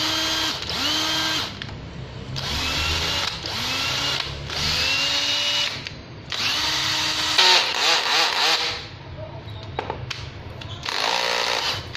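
National EZ6230 cordless drill-driver run unloaded in repeated short trigger pulls, about eight, its motor whining up in pitch at the start of each burst and stopping between them. A few sharp clicks come about two-thirds of the way through.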